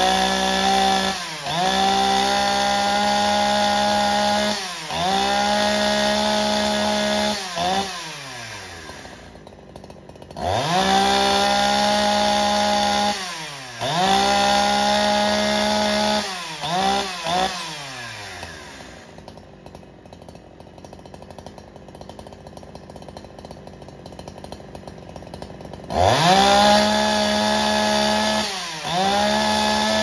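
Professional two-stroke gas chainsaw of about 70 cc running at full throttle in bursts of a few seconds, as in bucking firewood. The revs fall away to idle between bursts, with a long idle in the middle and a short run of quick blips before it.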